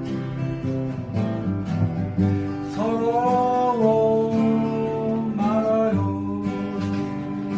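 Acoustic guitar strummed in a steady rhythm while a man sings over it, holding long notes with slides between them.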